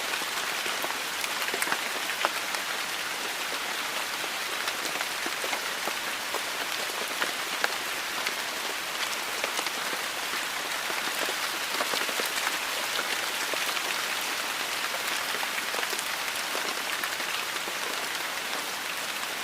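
Heavy rain falling steadily, a dense hiss with many individual drops ticking on hard surfaces.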